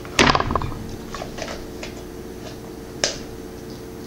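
Hard plastic parts of a Toilet Trouble toy toilet knocking and clicking as they are handled and fitted together: a loud clatter just after the start, a few light ticks, and one sharp click near the end.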